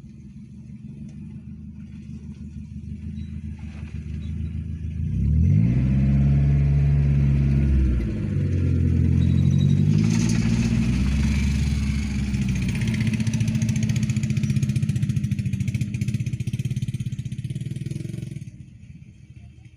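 A truck's engine revving as it draws up and pulls past close by. The pitch rises sharply about five seconds in, dips briefly, then holds steady and loud before dropping away near the end.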